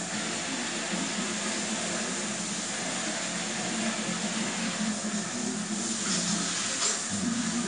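Shower water spraying steadily, a continuous hiss of running water.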